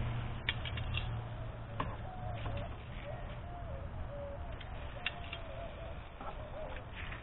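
A dove cooing in a low, wavering series of notes, with metal grill tongs clicking a few times as chicken pieces are set on a charcoal grill grate.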